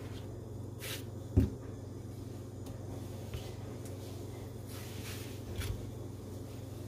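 Large kitchen knife slicing through raw squash and knocking down onto a wooden cutting board: short scraping slices, a sharp knock about a second and a half in, and softer knocks near the end, over a steady low hum.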